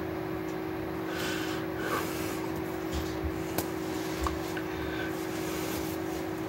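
Soft rustles of hands and clothing brushing together, with a few light taps, over a steady hum.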